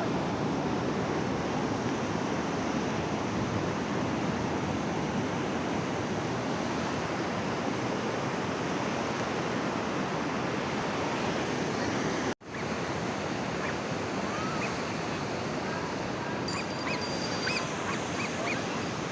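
Ocean surf: strong waves breaking on the beach in a steady wash of noise, with a brief cut-out about twelve seconds in.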